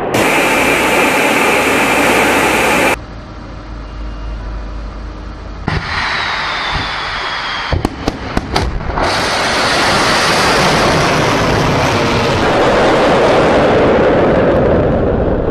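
Jet engine roar that cuts off suddenly about three seconds in, then a quieter rumble. About eight seconds in a quick series of sharp cracks leads into a long, loud rocket-motor roar as a missile is launched.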